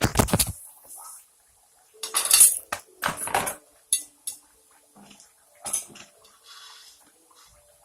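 Kitchen dishes and utensils clattering: several separate bouts of clanking and clinking as plates and cutlery are handled.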